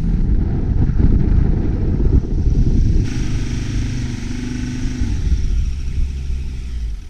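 A four-wheel-drive's engine working hard under load as it climbs a soft-sand dune, with a heavy, uneven low rumble. The climb falls short.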